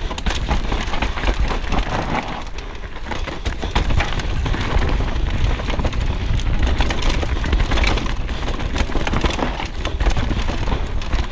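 Downhill mountain bike rolling over a rocky dirt trail: a dense, continuous rattle and clatter of tyres on stones and of the bike's parts, over a heavy low rumble.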